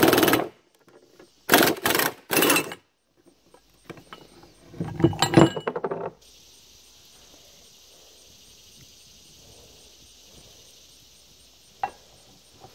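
Metal clanking and scraping as an OTC C-frame ball joint press and its adapter cups are worked and taken off a steel steering knuckle: a burst at the start, three short bursts about two seconds in and a cluster of clinks around five seconds. After that only a steady faint hiss remains, with one sharp click near the end.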